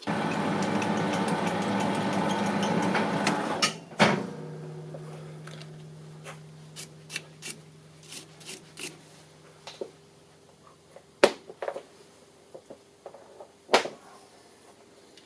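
Metal lathe running under power with a steady gear whine for nearly four seconds, then a sharp clunk as it is stopped. A low hum fades away afterwards, and scattered metallic clicks and taps follow.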